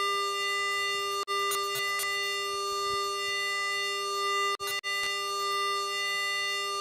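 Steady electrical hum with strong overtones in a Boeing 777-200ER cockpit, typical of the aircraft's 400-cycle AC power bleeding into the intercom audio. It cuts out for an instant about a second in, and twice in quick succession past the middle.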